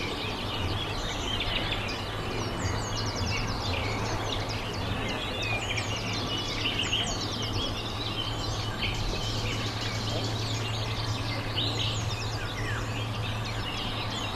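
Small birds chirping and calling busily and continuously over a steady low hum and outdoor background noise.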